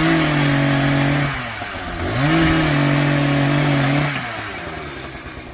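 Two-stroke chainsaw revved up to full throttle twice: a quick rise in pitch, a steady high whine held about a second, a drop back, then a second rise held about two seconds before it falls away near the end.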